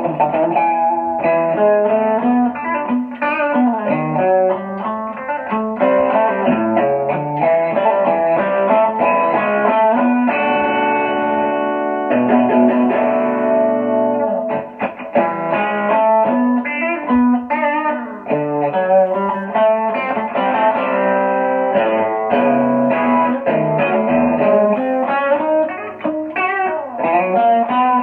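Telecaster-style electric guitar played through a small combo amp: quick runs of single notes and chords, with one chord left ringing for a few seconds about ten seconds in.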